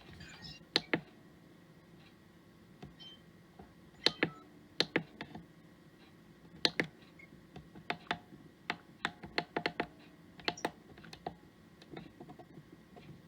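Irregular sharp plastic clicks, a dozen or more, some in quick runs: buttons being pressed on a La Crosse W85947 weather alert radio while it is being set up.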